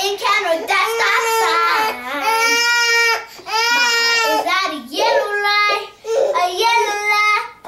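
A young girl singing without accompaniment, holding long notes between short breaks. A baby's voice breaks in at times.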